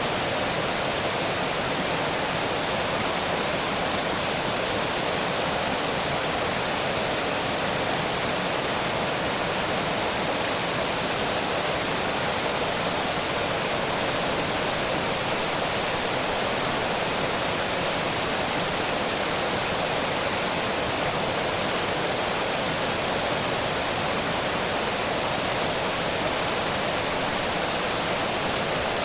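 Water pouring over a small dam, a steady, unbroken rush of falling water with the hiss strongest in the upper range.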